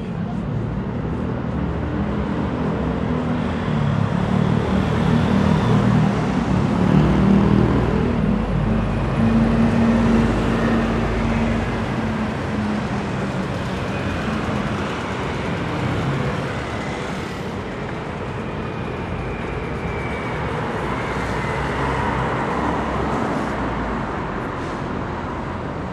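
City street traffic: a motor vehicle's engine running close by, growing louder and loudest about seven to ten seconds in, then fading out by about twelve seconds, over a steady hum of road traffic.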